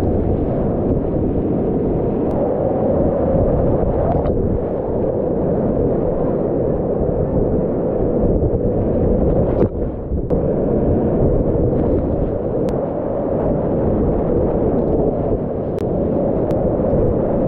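Whitewater rapids rushing loudly around a kayak running them, with spray splashing over the camera, a deep, steady rush with a brief drop about ten seconds in.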